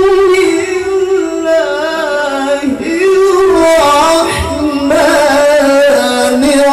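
A man reciting the Quran in the melodic tilawah style into a microphone: long held, wavering notes, with the pitch stepping between phrases.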